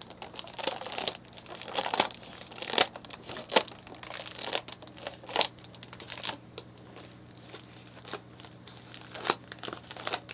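Clear plastic fish bag crinkling in irregular crackles as it is handled and its inflated neck twisted shut, over a steady low hum.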